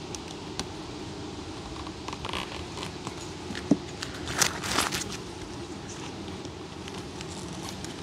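Metal hive tool prying and scraping between the wooden frames of a beehive box. A sharp crack comes about three and a half seconds in, then a short scraping rasp, over a steady low hum.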